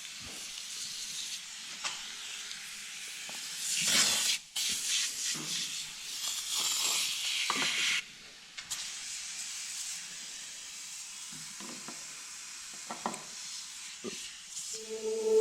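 Aerosol can of oven cleaner spraying in a run of hissing bursts, loudest from about four to eight seconds in. After that comes quieter noise with a few light clicks.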